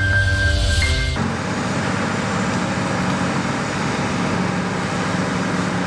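Music cuts off about a second in, giving way to the steady running of a Morbark 3200 Wood Hog grinder: a dense grinding noise over a low, even engine hum.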